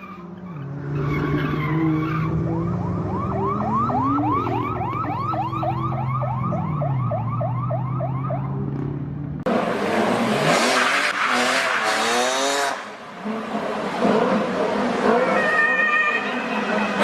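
A car engine runs and revs up and down while a police siren yelps in fast, repeated sweeps for about six seconds. About halfway through, the sound cuts abruptly to a louder, noisier jumble of street traffic.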